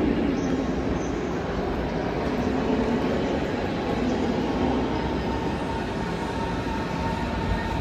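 A Berlin S-Bahn class 481/482 electric train approaching along the platform track over a steady station-hall din, with a thin whine coming in about halfway and growing stronger as it draws nearer.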